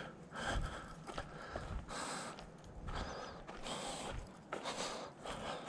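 Mitchell Avocet II spinning reel being cranked to retrieve a lure, a faint mechanical whirr that swells and fades about once a second.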